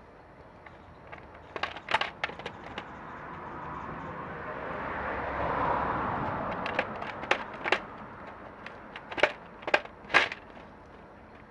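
A tabby cat eating dry kibble from a foil tray, with sharp crunches and clicks in two bursts. In the middle a broad background noise swells and fades.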